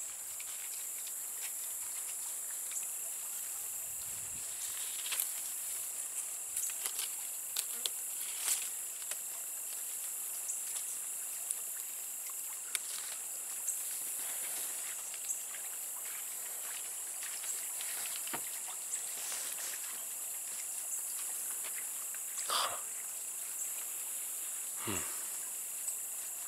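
Steady high-pitched drone of insects in a summer woodland, with scattered rustles and snaps of leaves and twigs as pawpaw fruit are pulled from a branch and handled. There are two slightly louder rustles near the end.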